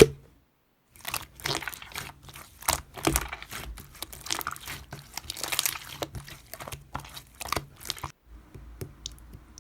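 Slime being squeezed and pressed by hand, giving irregular crackling and crinkling pops, which fade to a faint hiss near the end.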